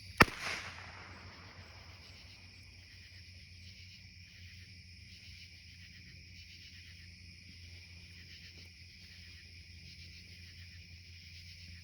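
A single sharp crack just after the start, with a short echo. Then a steady night chorus of insects trilling high and continuously.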